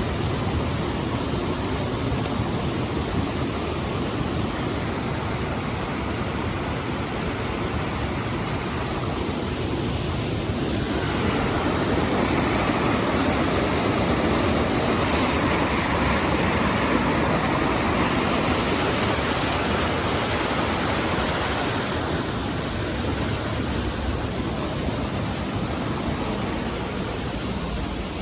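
Steady rush of flowing river water, growing louder and brighter from about ten seconds in, then easing back a little after about twenty seconds.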